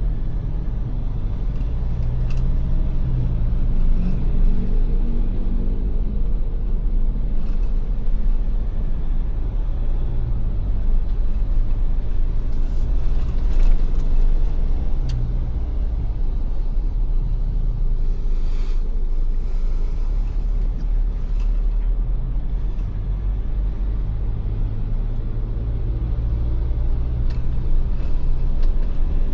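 Ford Everest SUV driving: steady low engine and road rumble, the engine note rising for a few seconds early on as it picks up speed, with scattered faint ticks and a brief higher hiss about two-thirds of the way in.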